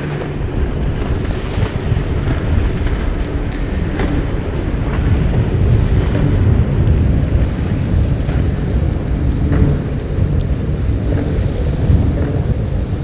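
Wind buffeting the microphone in a loud, gusting low rumble, over sea water washing against a rocky shore.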